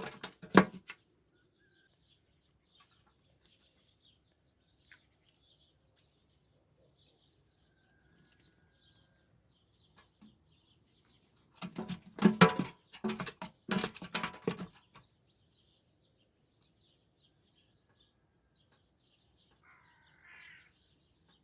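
Small birds chirping faintly and repeatedly, with a crow cawing near the end. About twelve seconds in, a louder, unidentified spell of sound lasts about three seconds.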